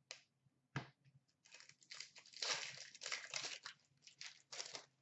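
Foil hockey card pack wrapper being torn open and crinkled by hand: two short clicks in the first second, then about three seconds of crackling and tearing.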